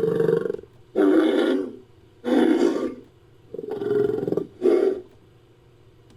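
Designed creature call for the chalicothere Kalimantsia, made from bison, buffalo and bull recordings: a series of deep roaring calls. A long call ends just after the start, then four shorter calls follow about a second apart, the last two close together.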